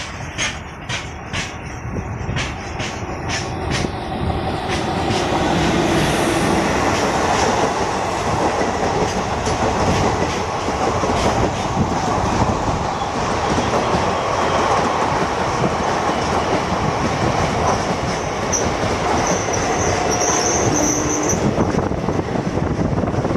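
Madurai–Chandigarh Superfast Express, an electric-hauled Indian Railways passenger train, passing close by slowly. Regular clicks, about two a second, of wheels over rail joints come first, then a steady rolling rumble of the coaches, with a brief high wheel squeal near the end.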